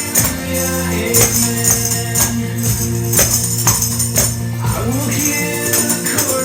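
A recorded rock-style worship song plays with tambourines jingling on the beat, sharp shaken-and-struck hits about twice a second over a steady bass and chords.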